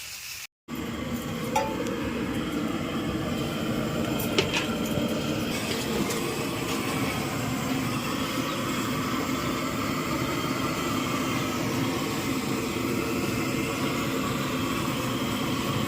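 Steady running noise of a vehicle in motion, with a few faint clicks and clinks.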